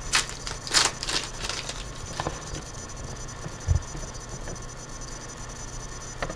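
Foil trading-card pack wrapper crinkling sharply as it is torn open in the first second or so, then a quieter rustle and slide of football cards being pulled out and leafed through, with a short soft knock about halfway through.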